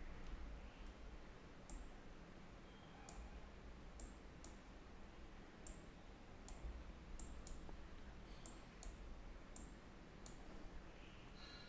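Faint computer mouse clicks, a dozen or so sharp, irregular clicks, some in quick pairs, over a faint steady low hum.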